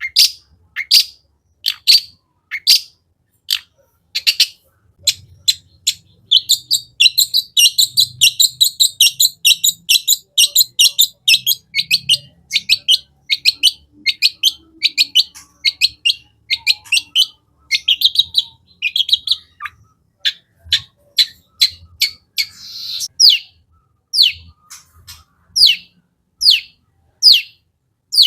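Long-tailed shrike (cendet) singing loudly: separate sharp notes falling in pitch, under a second apart, breaking into a fast dense chattering run from about six to eleven seconds in, then easing back to single falling notes.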